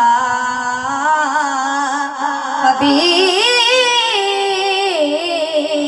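A boy singing a naat solo into a microphone, with no instruments. He draws out the salawat in long, wavering melismatic notes, amplified through a PA system, and a new, higher phrase begins about three seconds in.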